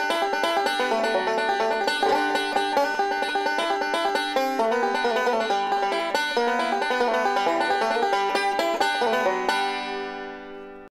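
Huber Workhorse five-string resonator banjo picked with fingerpicks in a fast, steady stream of bluegrass notes. About nine and a half seconds in it lands on a final chord that rings and fades away.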